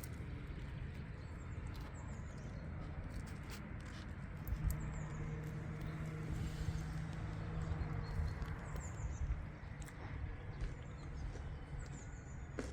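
Outdoor background with a steady hiss, a few short bird chirps and scattered small clicks. A low hum comes in about a third of the way through and fades a few seconds later.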